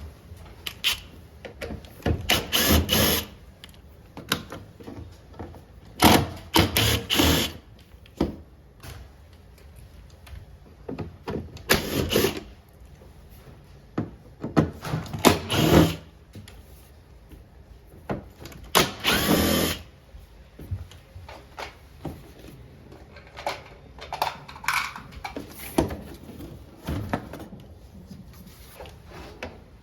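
Cordless power screwdriver run in short bursts of a second or so, about five times, with light clicks and knocks of handling in between, as screws are backed out during disassembly of a ceiling-cassette air conditioner.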